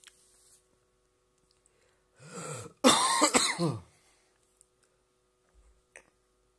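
A man clears his throat and coughs about halfway through: a short rough intake, then about a second of loud, gravelly hacking in a few quick pushes. The rest is quiet room tone.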